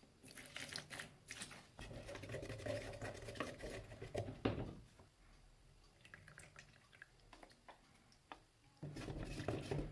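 Paint being mixed with liquid in a plastic cup: liquid is poured in, then stirred with wet squishing and clicking for the first half. Near the end, paint is scraped out of a tin into the cup with a wooden stick.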